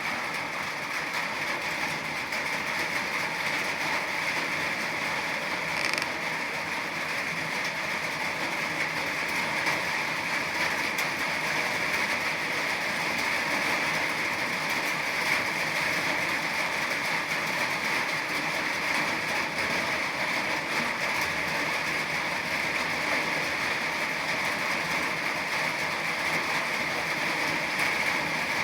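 Steady rain falling, an even, dense patter of drops that does not let up.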